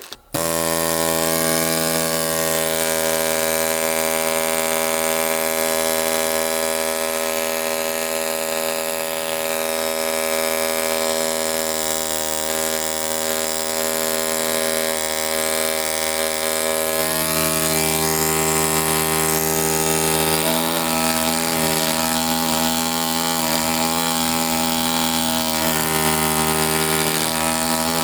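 ZOIC PalaeoTech Bronto pneumatic air scribe starting abruptly and running with a loud, steady buzz. In the second half the buzz turns rougher and uneven.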